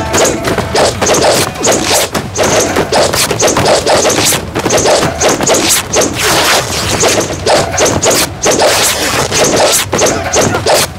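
Martial-arts film fight sound effects: a rapid, unbroken string of hits, swishes and crashes.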